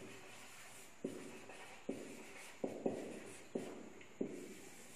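Felt-tip marker writing on a whiteboard: about seven short taps and strokes as the pen tip touches down and draws letters.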